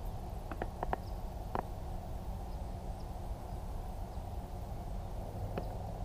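Steady low outdoor background noise with a few faint, scattered short clicks, most of them in the first couple of seconds and one more near the end.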